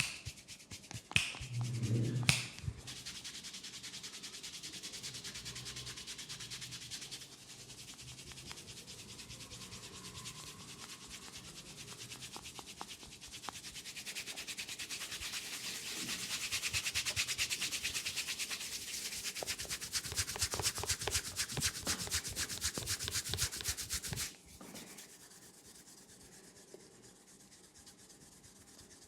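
Hands rubbing rapidly and steadily over hair and skin in a close-miked massage, a dense, even scratchy rustle. A few louder thumps come in the first couple of seconds, and the rubbing stops abruptly about five seconds before the end.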